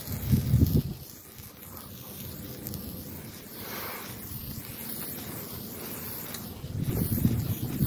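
A hand-held sparkler fizzing with a faint, steady hiss. Two loud low rumbles on the microphone break in, one in the first second and one near the end.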